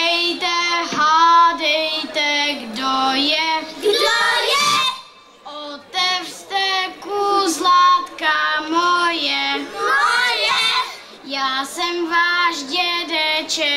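Children singing a Czech song from a children's stage musical, in a clear melody with held notes and a short break about five seconds in.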